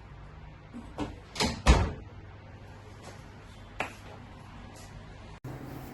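A few sharp knocks and clunks of an oven door and rack as a baking mould is put into a hot oven, the loudest just under two seconds in.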